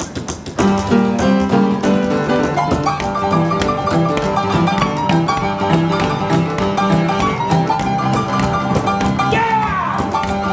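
Upright piano played in a lively blues style: a steady, evenly repeating bass figure in the left hand under right-hand chords and runs.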